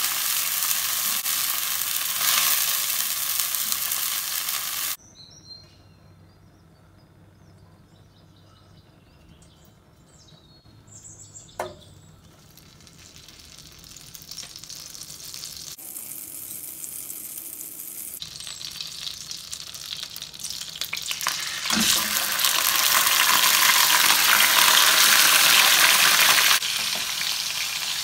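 Food sizzling and frying in a wok: first a loud steady sizzle of onions, cashews and green chillies cooking in oil and liquid, which cuts off abruptly about five seconds in. After a quiet stretch with a single click, butter sizzles in the hot wok, growing gradually louder. About 22 seconds in a sudden thud brings on the loudest sizzle, as marinated chicken pieces fry and are stirred.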